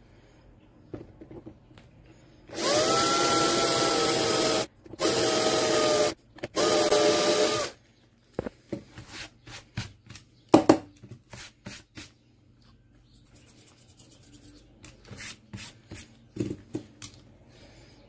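Cordless drill running in three bursts of a second or two each, its motor whine dropping a little in pitch as the bit bites into the rivet on the metal base of a Hot Wheels diecast car. Then comes a string of light clicks and taps, one sharper than the rest, as the small car is handled.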